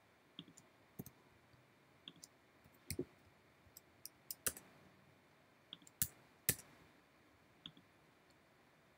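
Faint, irregular clicks of computer keyboard keys being typed, one or two at a time with short pauses between.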